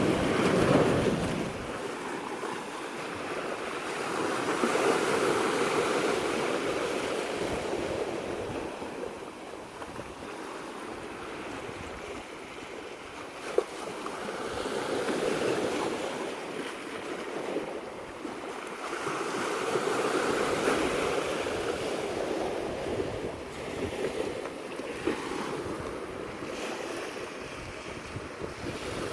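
Sea waves washing in, swelling and falling every several seconds, with wind. There is a single sharp click about halfway through.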